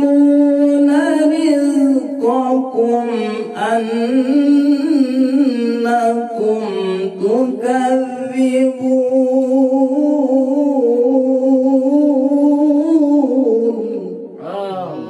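A man's voice reciting the Quran in the melodic tilawah style into a handheld microphone: long held notes with ornamented turns. The phrase fades near the end, and a new one begins just before it closes.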